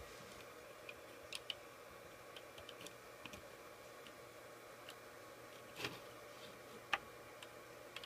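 Faint, irregular light clicks and ticks as a plastic hook pulls rubber bands over the pegs of a plastic rubber-band loom, with a sharper click about a second before the end, over a low steady hum.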